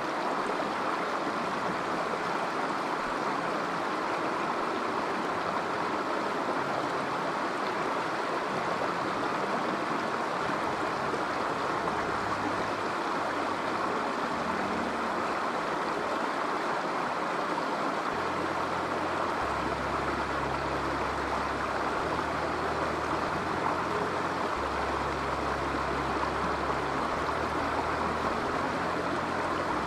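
A shallow river running over rocks, a steady rush of flowing water.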